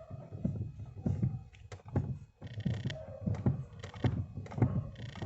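Steering column joint of a Chevrolet Corsa pickup knocking repeatedly, about two knocks a second. The knocks are really loud and are felt as a hard jolt in the steering wheel. The cause is a loose bolt on the steering column joint, not a worn steering box.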